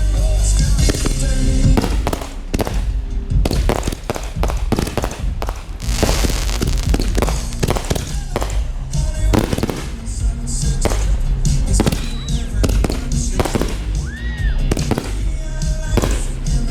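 Fireworks display: a rapid, continuous series of bursts and booms, with music playing alongside. A short whistle-like tone rises and falls near the end.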